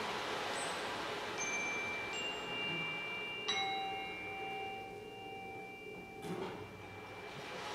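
Chime-like struck metal tones: a few high single notes ring out, then a louder, lower strike about three and a half seconds in. They all ring on until they stop short a little after six seconds, over a steady hiss.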